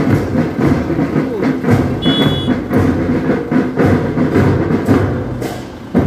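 Loud music with a steady, pounding drumbeat.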